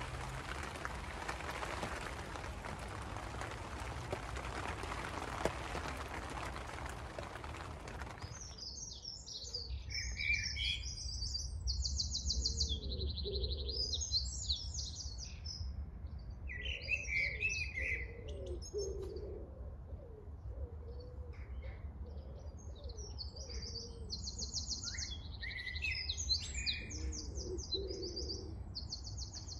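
Steady rain falling on a polythene cover for the first eight seconds or so, cutting off abruptly; then songbirds singing, with repeated high trills and chirps.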